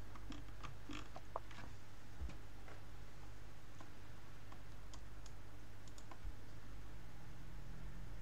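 Scattered light clicks from computer use at a desk, irregular and sparse, thickest in the first few seconds and again around five to six seconds in, over a steady low hum.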